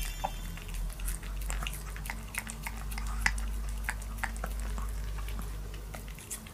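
Pomeranian licking a squeezable paste treat from a tube: quick wet licking and smacking clicks, about two to three a second.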